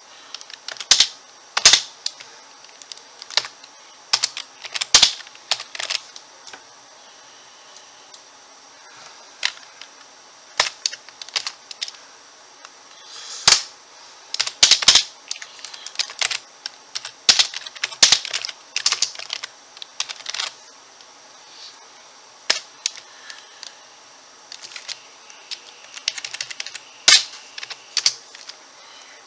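Typing on an RGB-backlit computer keyboard: irregular runs of sharp key clicks with short pauses between them, some strokes much louder than the rest.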